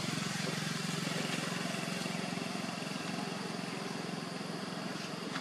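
A small engine idling steadily: a low, even hum with a fast regular pulse.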